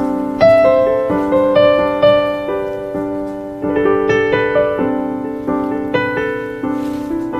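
Background score of slow piano music: single notes and chords struck one after another and left to ring out.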